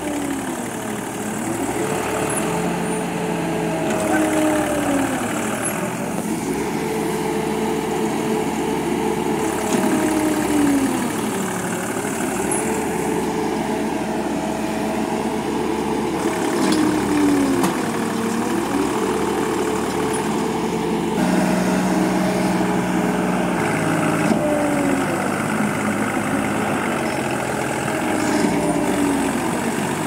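Diesel engines of a tractor stuck deep in mud and a combine harvester working beside it, revving up and dropping back over and over every few seconds as the machines strain to get the tractor free.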